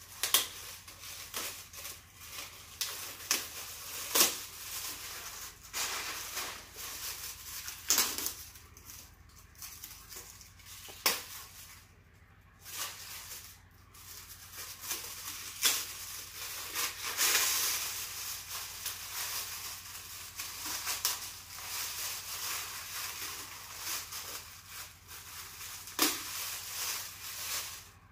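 Shiny metallic gift wrap crinkling and tearing as a present is unwrapped by hand: irregular sharp rips and crackles, with a longer stretch of steady rustling about two-thirds of the way through.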